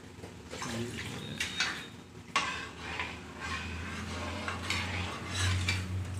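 A metal spatula clinking and scraping against a steel kadai as masala gravy with freshly added water is stirred. The clinks are scattered, with a low steady hum underneath that grows stronger in the second half.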